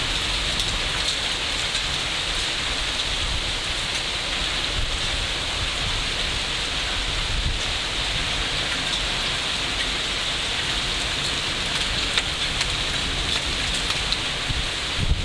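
Heavy thunderstorm downpour of rain mixed with hail, a steady dense hiss with a few sharp ticks here and there.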